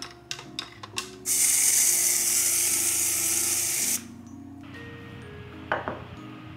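A metal spoon clinking several times against a ceramic mug while stirring hot chocolate, then an aerosol can of whipped cream spraying with a loud hiss for about three seconds. A single light knock comes near the end, over soft background music.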